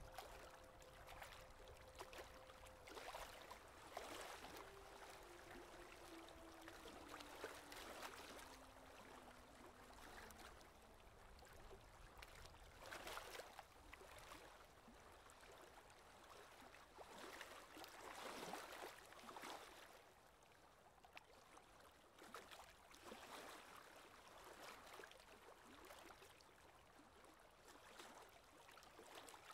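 Faint rush and splash of sea water along a sailboat's hull as it runs downwind, coming in irregular swells every second or few seconds.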